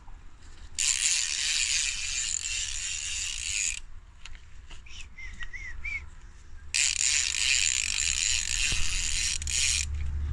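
Fishing reel's drag clicking rapidly as a hooked catfish pulls line off, in two runs of about three seconds each that start and stop abruptly.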